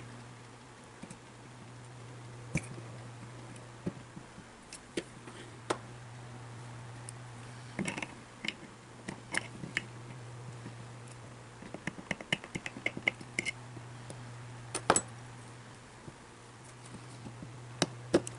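Scattered light clicks and taps of small metal parts and hand tools being handled at a workbench, with a quick run of rapid ticks about twelve seconds in and a sharper click a few seconds later, over a steady low hum.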